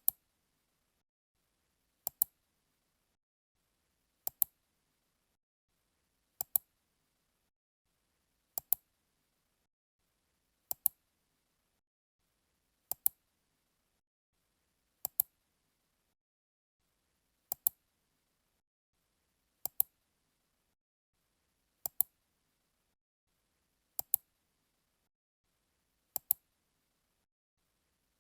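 Click sound effect: sharp, high double clicks, a softer click followed at once by a louder one, repeated about every two seconds with silence between.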